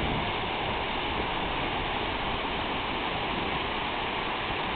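Ocean surf washing over the shallows: a steady rush of water.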